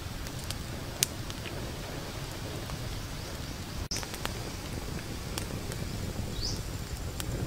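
Wood campfire burning with a steady low rush and scattered crackling pops, the sharpest about a second in. A bird gives a short high chirp twice in the second half.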